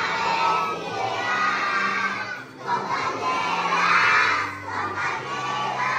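A large group of young children singing a hymn together loudly, almost shouting, with music underneath.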